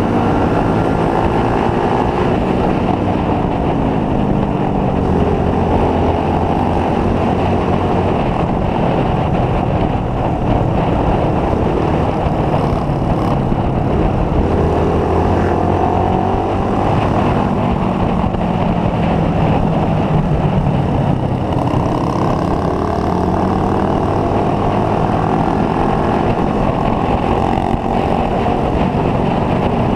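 Motorcycle engine running at road speed, its pitch rising and falling again and again as the throttle opens and closes, over a steady rush of wind noise.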